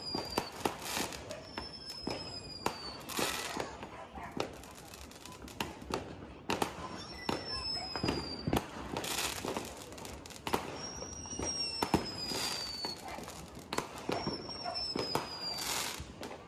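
Fireworks going off: rapid pops, sharp bangs and crackling bursts, with several high whistles that each fall slightly in pitch over about a second.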